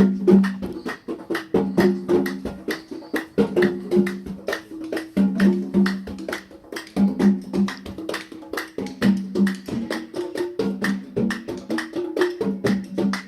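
Background music with a fast, dense percussion beat over low repeating notes.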